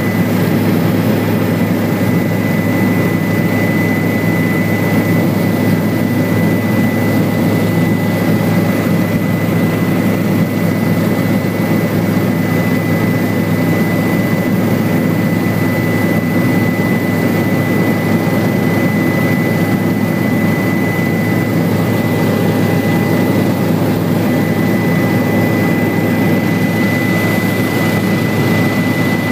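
Helicopter cabin noise in flight: a loud, steady engine and rotor drone with a constant high whine running through it.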